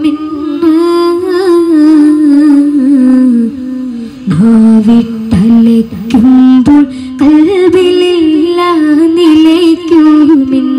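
A boy singing solo into a microphone, amplified through a PA: an unaccompanied melody of long held notes with ornamented turns, with short breaks between phrases.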